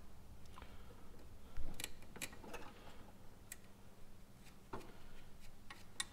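Sparse, irregular light clicks and clinks of hand tools on metal, over a faint low hum.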